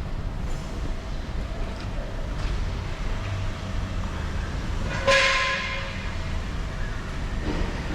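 A steady low rumble, with a sudden loud ringing, horn-like tone about five seconds in that fades away within about a second.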